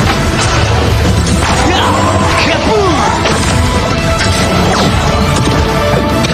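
Dramatic background music layered with repeated crashing impact sound effects and sweeping glides.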